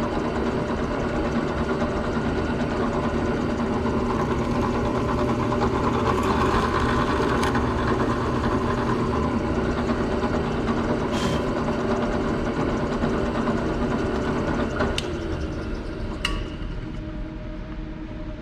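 Electric drill motor running steadily while a hole is bored into a wooden blank, with a few sharp clicks. The motor slows and quietens in the last few seconds.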